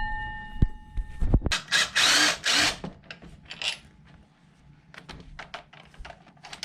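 Metal hand tools clinking and clicking during engine work: a ringing clink dies away in the first second, a short burst of hiss follows about two seconds in, then scattered light clicks and knocks.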